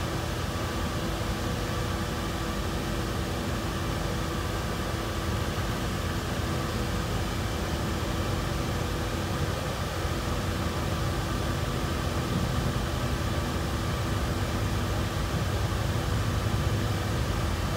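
Steady fan-like mechanical hum with hiss and a few constant tones, unchanging throughout.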